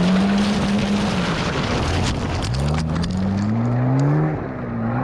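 Off-road Volvo 940's engine revving: steady at first, then dropping and climbing in pitch as it accelerates from about halfway, easing briefly near the end and climbing again, over a steady rush of noise.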